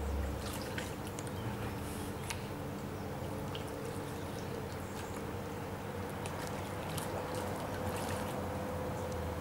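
Shallow river water running steadily over a stony bed, with a faint steady hum and a few short, sharp ticks scattered through.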